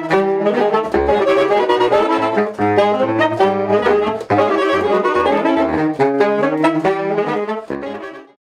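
Saxophone quartet playing together, soprano saxophones among the voices, several parts moving at once in changing notes. Near the end the music fades out.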